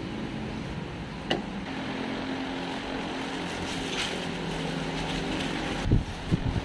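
A steady low mechanical hum, like a motor running, with a single sharp click about a second in and a few low thumps near the end.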